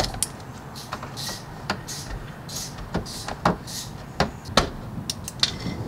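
Hand tool clicking and scraping against fasteners and the plastic under tray beneath a car as the tray is unfastened: irregular sharp clicks with a few short scrapes.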